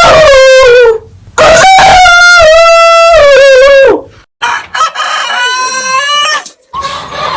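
Rooster crowing: a loud crow tails off about a second in, a second long crow follows, then quieter crows near the end.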